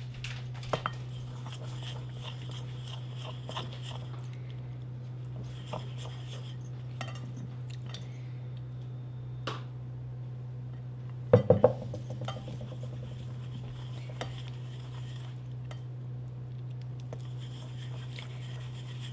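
A small wire whisk stirs powdered-sugar and maple-syrup icing in a stainless steel bowl, scraping and clicking against the metal in spells. About eleven seconds in there is a quick clatter of three sharp metallic knocks that ring briefly. A steady low hum runs underneath.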